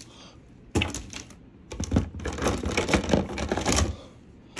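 Plastic toy train track pieces clattering and clicking against each other as they are handled and set down. There are two spells of rapid clicks, a short one about a second in and a longer one of about two seconds.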